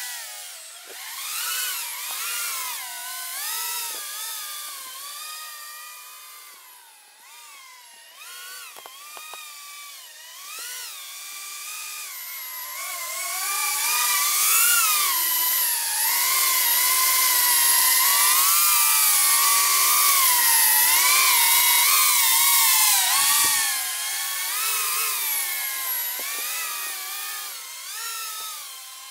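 E-Flite Torrent 110 FPV mini quadcopter in flight, its motors and propellers whining with a pitch that keeps rising and falling as the throttle changes. It is quieter for a stretch early on, then grows loud as the quad flies close, from about twelve seconds in until it fades again near the end.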